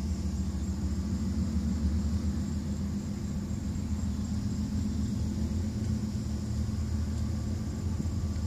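Low, steady rumble of a diesel freight train's locomotives, a GE ES44C4 and an EMD SD40-2, approaching the crossing.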